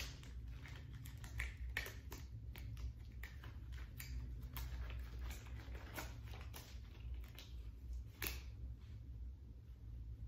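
Sterile surgical gloves being pulled on, with their paper wrapper crinkling: a string of soft rustles and crackles, with one sharper click about eight seconds in.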